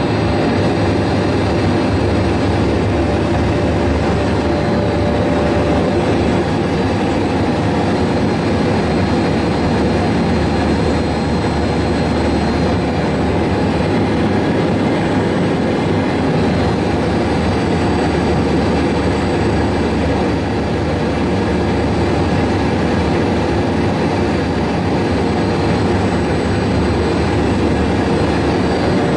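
Jet engine running steadily: a continuous, even rumble with faint high whining tones over it, holding at the same level throughout.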